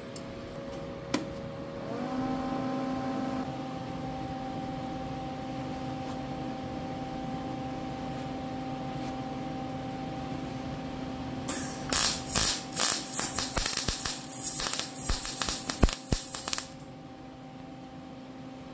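Lincoln Electric MIG welder tack-welding a steel frame: the arc crackles in a run of short, irregular bursts for about five seconds starting about 11 seconds in, then stops abruptly. Earlier there is a single click and then a steady hum that starts near the beginning.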